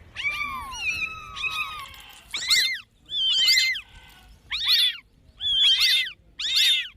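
A cat meowing over and over in short, high-pitched meows that rise and fall. The first few are softer; from about two seconds in they come louder, roughly one a second.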